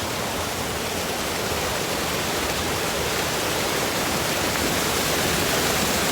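Waterfall rushing steadily, swollen and gushing hard after heavy rains, growing a little louder toward the end.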